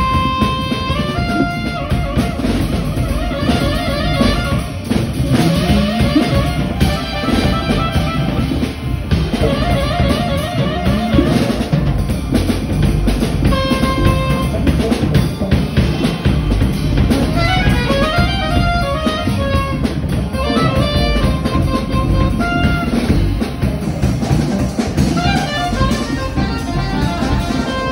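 Soprano saxophone soloing over a drum kit, with fast runs of notes broken by a few held notes, one right at the start and another about halfway through.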